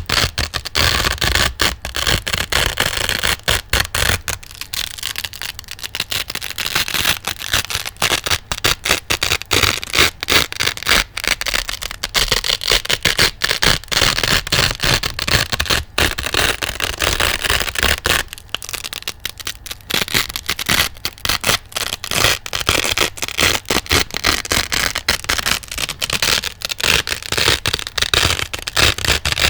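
Hook-and-loop Velcro being scratched and pulled apart close to the microphone: a continuous crisp crackle made of many tiny rapid clicks, with short lulls around four to six seconds in and again around nineteen seconds in.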